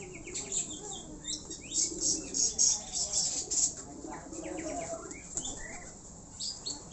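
Pigeon wings flapping in a quick run of beats, loudest from about two to three and a half seconds in, with small birds chirping in short falling notes throughout.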